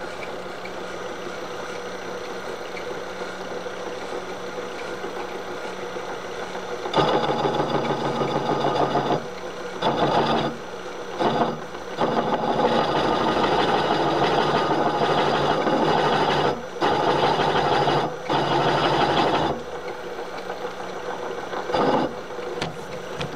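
Milling machine spindle running at low speed, then a countersink cutting into a drilled hole in a cast part in repeated bouts from about seven seconds in. The cut rings with chatter, a sign the spindle needs to run slower.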